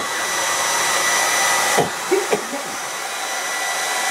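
Handheld hair dryer running steadily, blowing on a steel air-rifle barrel to warm it for bluing, its rushing air carrying a thin motor whine. The sound dips briefly about two seconds in.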